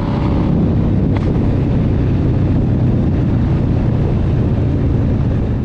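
Harley-Davidson Dyna Fat Bob V-twin exhaust, loud and steady under hard acceleration while overtaking, with one sharp crack about a second in, likely the exhaust pop the rider points out.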